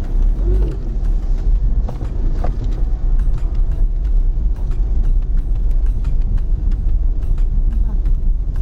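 Car driving, with a steady low road rumble.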